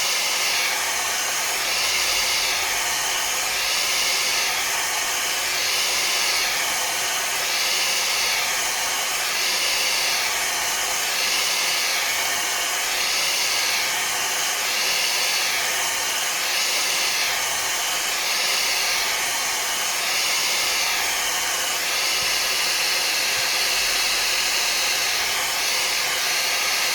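Hair dryer blowing hot air onto a phone's back cover to soften the adhesive before prying it open. A steady whoosh that wavers evenly about once every second and a half, then cuts off at the very end.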